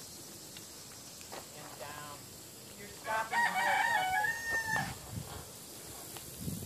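A rooster crowing once, about three seconds in: one call of nearly two seconds that ends on a long held note. A sharp click right at the end.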